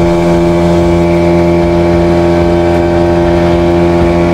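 Motorboat engine running steadily with the boat under way: an even, unchanging drone.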